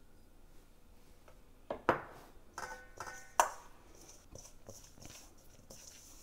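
Kitchenware clinking and knocking: a few sharp knocks, the loudest about two seconds and three and a half seconds in, with a brief ringing clink between them.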